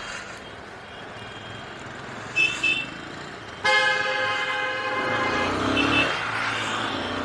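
Vehicle horns in road traffic: two quick short beeps, then about a second later a loud, long horn blast, and another pair of short beeps near the end, over steady road and engine noise from a moving motorcycle.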